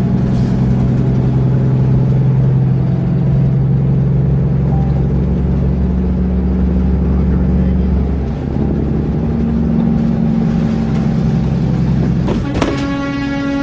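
Steady low drone of a vehicle's engine at highway speed, its pitch shifting about eight seconds in. About a second before the end a horn starts, one held blast.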